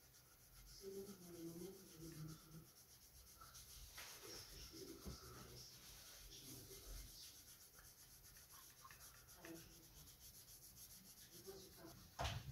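Near silence with faint rubbing and light handling noises, and a sudden knock at the very end.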